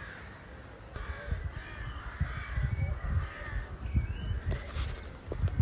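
Crows cawing, many short calls overlapping, over a steady low rumble.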